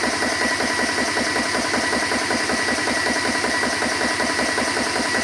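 CS GX3 portable PCP high-pressure air compressor running under load while filling an air rifle toward 3,000 PSI, its piston pump chugging in a fast, even pulse with a steady high whine over it.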